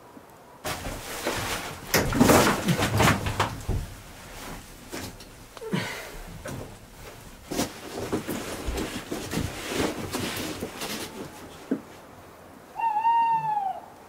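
Irregular clattering knocks and rustling for about ten seconds, loudest a couple of seconds in. Near the end comes a single animal call of about a second, falling in pitch.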